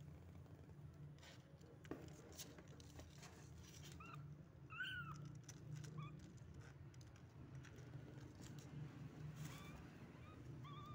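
Faint, short, high-pitched kitten mews, several of them, the clearest about five seconds in and a few more near the end, over a low steady hum.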